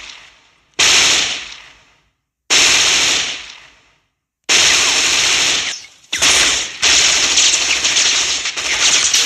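Film sound-effect automatic gunfire: two short bursts of machine-gun fire, each dying away in a long echo with a brief silence after it, then long sustained bursts of rapid fire from about four and a half seconds in.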